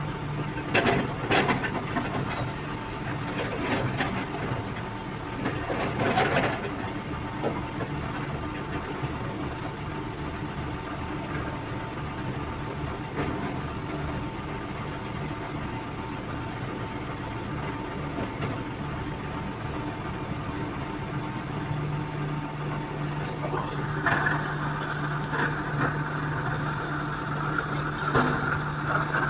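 Diesel engine of heavy construction machinery running steadily, with a few sharp knocks in the first several seconds. Around three-quarters of the way through, the engine note grows louder and steadier, as under more load.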